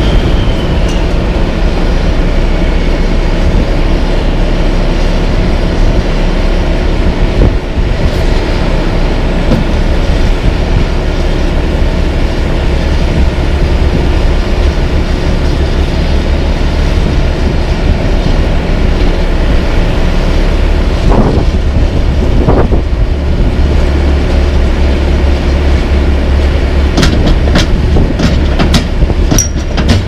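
Diesel engines of a dump truck and an asphalt paver running steadily under wind buffeting the microphone, giving a loud, continuous low rumble. A few short sharp clicks come near the end.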